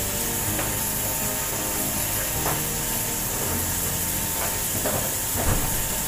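A steady hiss, like venting steam, with background music playing over it.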